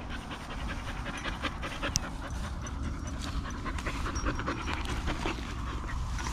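Young dog panting steadily, with one sharp click about two seconds in.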